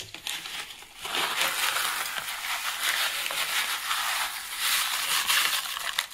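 Dry stuffing-mix crumbs being poured from a packet into a crock pot, a steady crackling rustle of crumbs and crinkling packet that starts about a second in and lasts about five seconds.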